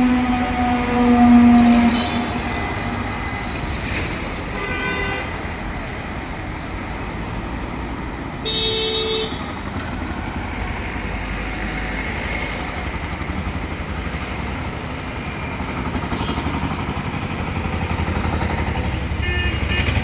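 City street traffic with car horns blowing: a long siren tone falls away and stops about two seconds in, then horns sound briefly several times, loudest about eight and a half seconds in. Traffic rumble swells near the end as a vehicle comes close.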